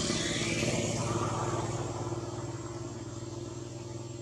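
A motor vehicle engine running as it passes, loudest about half a second in and then slowly fading.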